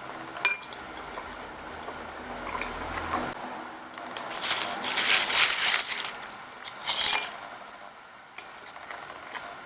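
Tabletop handling sounds: a sharp clink with a brief ring about half a second in, then several bursts of rustling and knocking, the longest in the middle.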